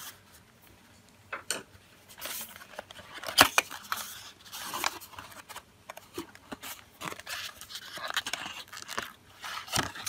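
Cardboard SSD box being slit open with a hobby knife and its flap lifted, then a clear plastic tray slid out: scattered scrapes, tearing and clicks of cardboard and plastic, the sharpest click about three and a half seconds in.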